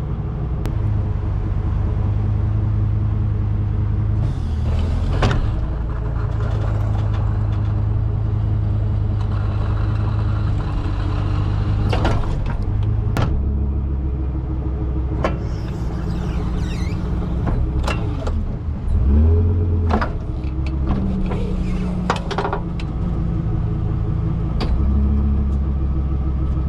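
Tow truck engine running steadily, its low hum stepping up and down several times as the hydraulic wheel-lift is worked, with a number of sharp metal clanks as the lift is set under the car and raises its front end.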